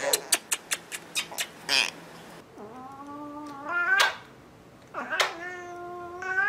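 A quick run of sharp smacking clicks, then a tabby cat yowling twice in protest at being kissed: two long drawn-out calls, the first rising in pitch.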